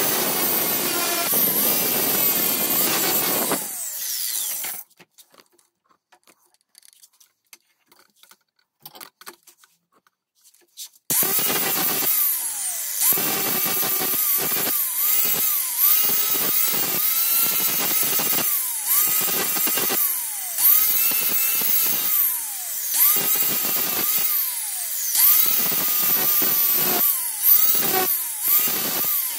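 Small electric power tool polishing a steel spanner. Its high-pitched motor whine stops about five seconds in, leaving a few faint clicks, and starts again about eleven seconds in. After the restart the pitch keeps dipping and recovering, roughly once a second.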